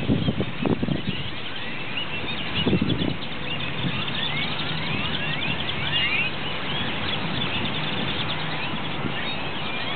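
A large flock of purple martins calling as they gather at a roost: a constant stream of many overlapping short chirps. There are low thumps in the first second and again near three seconds in, and a steady low hum underneath.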